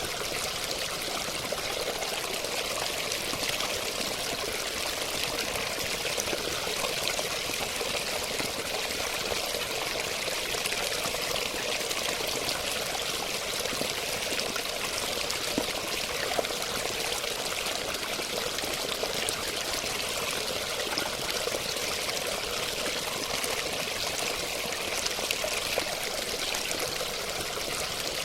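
Water steadily pouring and splashing, like a small stream or cascade, an even rushing hiss with small splashy crackles throughout.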